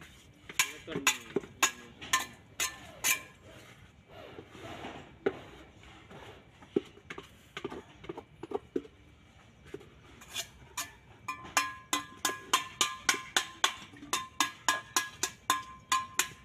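A metal tool tapping and clinking repeatedly on a hard surface: sharp ringing taps, scattered at first, then coming in quick runs of about four a second in the second half.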